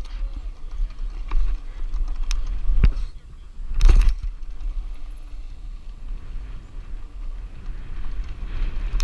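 Mountain bike rolling over a dirt pump track, heard through a ride-mounted camera: a steady low wind rumble on the microphone and tyre noise on the dirt, with two sharp knocks about three and four seconds in as the bike jolts over the rollers.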